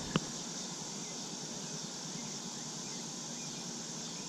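Steady, high-pitched chorus of crickets over quiet pond-side ambience, with a single short click just after the start.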